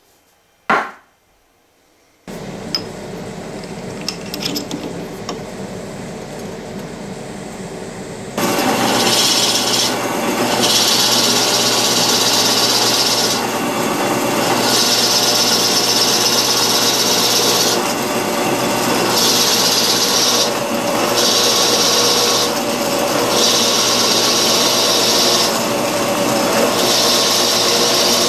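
A drill press boring into a block of wood: a sharp click about a second in, the motor starting and running steadily about two seconds in, then a much louder, steady cutting noise from about eight seconds as the bit bites into the wood. The cutting noise drops back briefly several times and picks up again.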